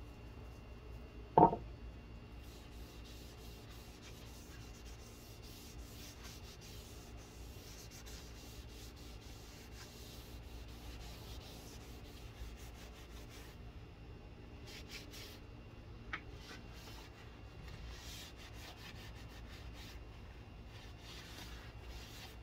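A rag rubbing finish onto a wooden shelf in irregular, hissy wiping strokes. A single sharp knock about a second and a half in, and a faint click later on.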